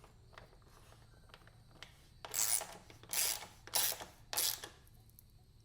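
Four short rasping strokes of a hand tool tightening the middle mounting bolt of an exhaust slip-on, about half a second apart.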